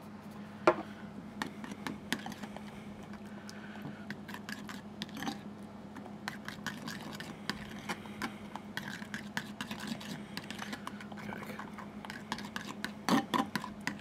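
Metal spoon stirring a thick garlic sauce of mayonnaise and yoghurt in a ceramic bowl: many small, irregular clicks and scrapes of the spoon against the bowl, with a louder knock about a second in and a cluster of clinks near the end.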